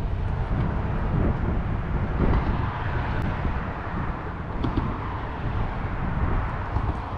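Wind buffeting the microphone on an open boat, a steady low rumble that rises and falls, with a few faint small clicks.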